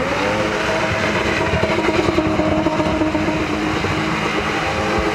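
BMW E30 spinning, its engine held at high, steady revs while the rear tyres spin in the smoke, with a hiss of tyre noise.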